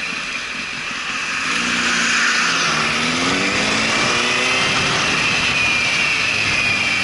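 The inline-four engine of a 2005 Honda CBR1000RR Fireblade accelerating under way, its pitch rising from about a second and a half in and then holding steady, with wind rush over the microphone throughout.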